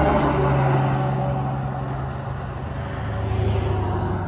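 Peterbilt 378 dump truck passing close by and pulling away. Its diesel engine note drops in pitch as it goes past, then fades, swelling briefly again about three and a half seconds in.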